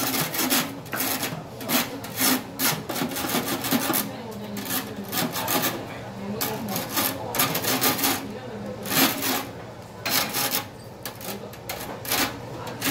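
Metal tongs scraping and clacking against a stainless wire grill rack as they press and shift raw eel fillets, a run of short, irregular scrapes and clicks.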